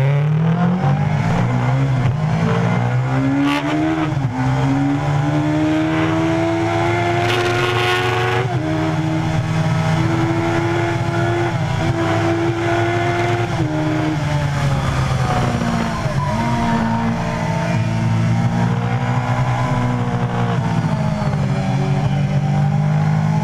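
Sportbike engine heard from the rider's seat, accelerating hard through the gears: its pitch climbs and drops at upshifts about four and eight and a half seconds in, then holds steady at speed, easing off briefly in the middle before pulling steadily again.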